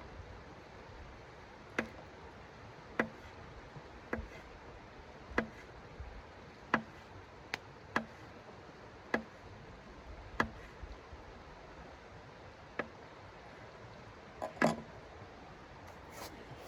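A series of sharp knocks, roughly one every second and a bit, with a louder double knock near the end, over a steady hiss.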